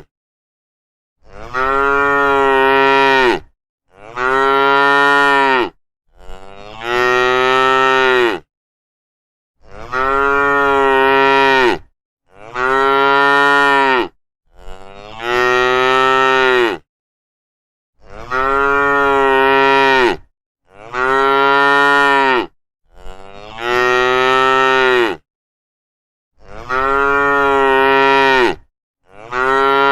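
Cows mooing over and over: about eleven long moos, each about two seconds, each rising then falling in pitch, with short silent gaps between them.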